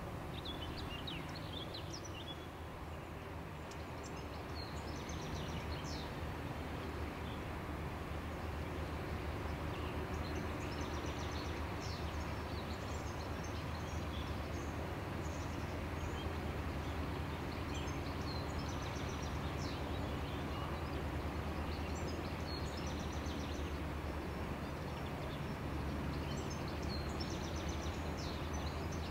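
Low steady drone of a passing inland tank ship's diesel engine, growing a little louder a few seconds in as the vessel draws near. Small birds chirp now and then.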